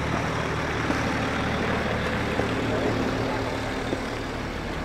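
Heavy vehicle's engine idling nearby, a steady low hum.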